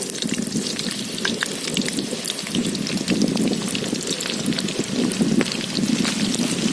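Onion pakoda batter deep-frying in hot oil in a kadai, a dense, continuous sizzle with many small crackles.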